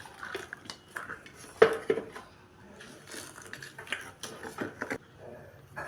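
Kitchen utensils clinking and knocking against bowls and dishes while batter ingredients are handled, with the two loudest knocks about a second and a half in.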